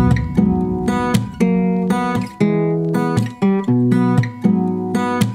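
Background music: a strummed acoustic guitar playing a chord pattern, with a new strum about twice a second.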